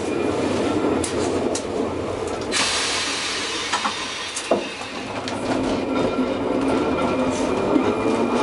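Vintage Trieste–Opicina tramcar running along the track, heard from inside the car: a steady rumble with scattered clicks of the wheels on the rails. About two and a half seconds in there is a burst of hissing lasting about two seconds.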